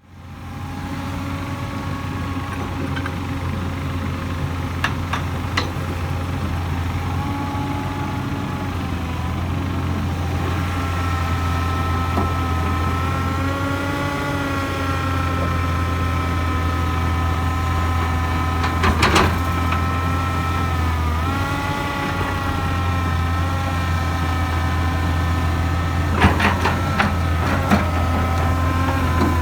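Hydraulic excavator working: its diesel engine runs steadily while the hydraulics whine, rising and falling with each movement. A few sharp knocks come partway through and again near the end.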